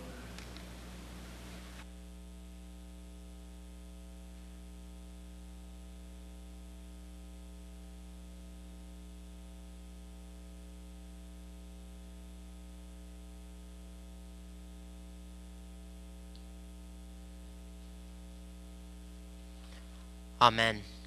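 Steady electrical mains hum, a low buzz with a stack of even tones underneath, and a faint hiss that drops away about two seconds in. A voice says "Amen" near the end.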